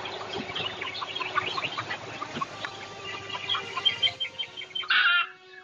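Chickens clucking, with one louder call about five seconds in.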